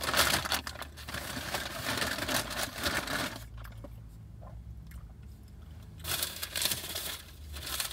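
Crunching and crinkling close to the microphone while eating fast-food chicken nuggets, in two spells: one of about three seconds, then a shorter one near the end.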